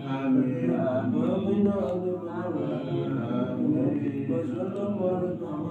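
A man chanting wirid (Islamic dhikr recitation) in a husky, raspy voice, a continuous melodic recitation with slow rises and falls in pitch.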